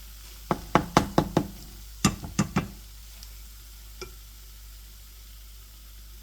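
A cooking utensil knocking sharply against a frying pan: a quick run of about five knocks, then a second run of four about a second later, over a faint steady hiss.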